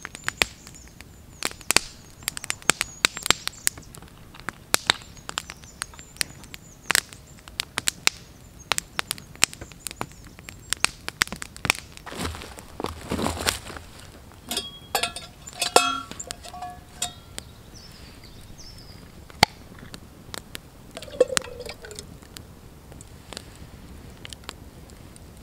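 Wood campfire crackling with frequent, irregular sharp pops. A short rustle comes about halfway through, followed by a few brief chirping notes.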